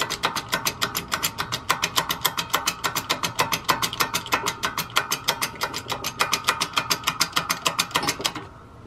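Rapid, even clicking, about eight clicks a second, over a steady tone, stopping abruptly near the end.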